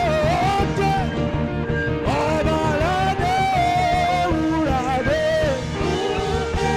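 Saxophone playing a slow worship melody, sliding and bending between long held notes, over a backing band with steady bass.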